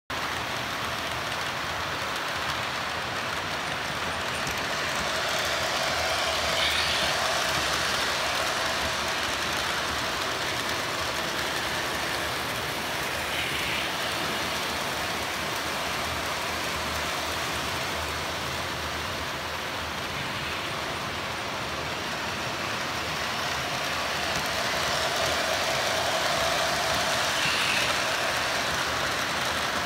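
Model electric trains running on the layout's track: a steady rumble of wheels and motors that grows a little louder twice as a train passes close.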